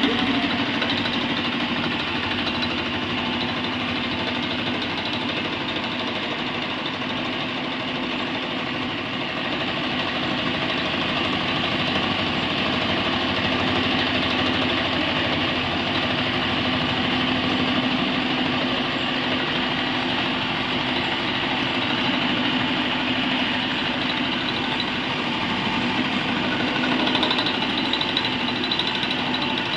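Batliboi milling machine running with its end mill cutting into a metal workpiece: a steady grinding cutting noise over a constant low hum from the spindle.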